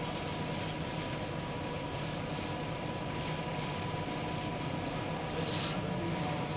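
Steady machine hum and hiss with a faint constant whine, with a few brief soft rustles from plastic-gloved hands pushing ink tubes onto a pump fitting.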